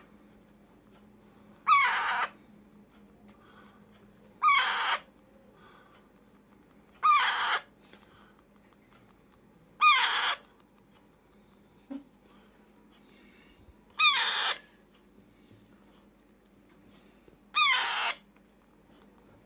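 Alexandrine parakeet giving loud, harsh squawks, one call every few seconds, six in all. A short click comes between two calls.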